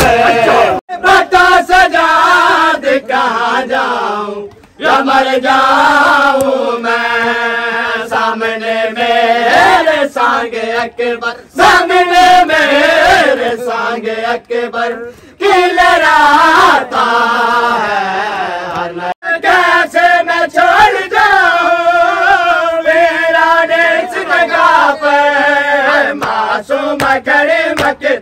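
Men chanting a noha, a Shia Muharram lament, with one loud, wavering lead voice and others chanting along. Occasional slaps of hands beating chests in matam.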